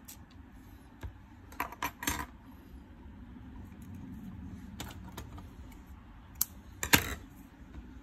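Scattered small clicks and light taps from hands handling fishing-rig parts and tools on a cutting mat, with a few quick taps about two seconds in and the sharpest one about seven seconds in.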